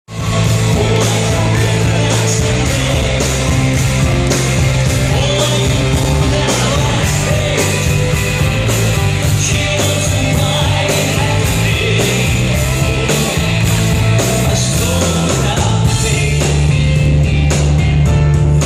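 Rock band playing live, loud and full, with drums keeping a steady beat over heavy bass.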